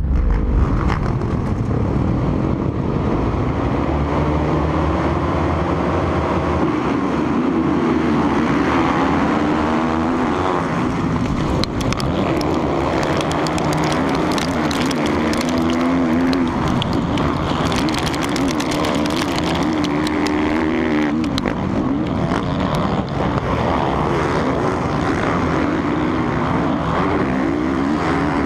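Honda four-stroke motocross bike engine racing on the opening lap, revving up and down through the gears as it is shifted, with the engines of the surrounding pack mixed in, heard close from a helmet-mounted camera.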